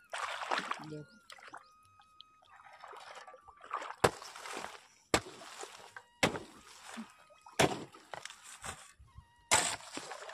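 A shovel working wet mud beside a flooded irrigation bed: scraping and wet slaps with water sloshing, broken by about five sharp knocks of the blade. The mud is being shifted to turn the irrigation water.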